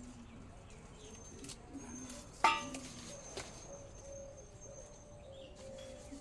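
Birds calling outdoors: repeated short, low cooing notes. A thin high steady note sounds for about four seconds, and a single sharp click with a brief ringing tail comes about two and a half seconds in.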